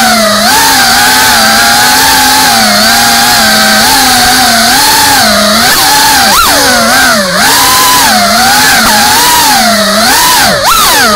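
Brushless motors and ducted propellers of a GEPRC Cinelog35 Performance 3.5-inch FPV cinewhoop drone, heard on board: a loud buzzing whine whose pitch rises and dips with the throttle, swinging more quickly and sharply in the second half.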